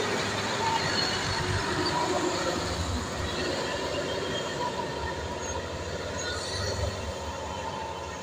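Diesel tanker truck driving past and away, its engine running with a low steady rumble that slowly fades as it moves off.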